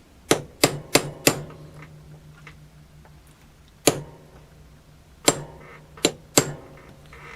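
Hammer tapping a punch to knock a stuck pin out of a knee brace: a quick run of four sharp strikes, a single strike in the middle, then three more.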